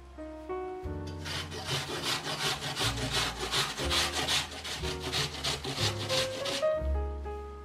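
Apple being grated on a stainless steel Microplane grater resting on a wooden board: rasping strokes, about three a second, starting about a second in and stopping near the end. Soft background music plays underneath.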